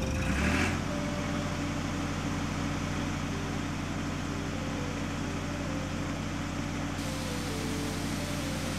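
Cartoon truck engine sound effect: a steady low engine drone with a hiss, after a short louder swell about half a second in.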